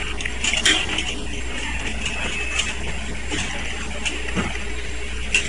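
Scattered clicks and light knocks of circuit boards and their metal carrier being handled and seated on a selective soldering machine, over a steady low machine hum.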